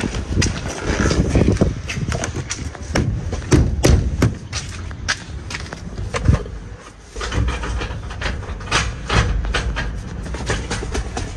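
Irregular clicks, knocks and rustling as the door of a 2001 Nissan Patrol is opened by its outside handle and someone climbs into the cabin and handles the dashboard and controls.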